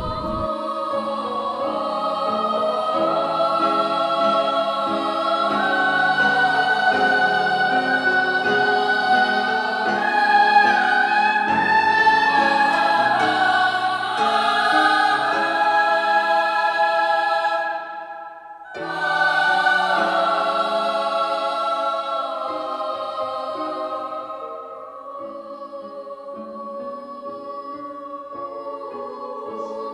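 Choral music: voices singing long held notes together. It breaks off briefly about two-thirds of the way through, then resumes and turns quieter near the end.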